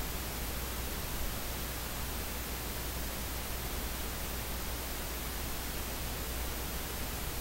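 Steady electronic hiss like static, with a low hum underneath and a faint high-pitched whine, unchanging throughout; no other sound stands out.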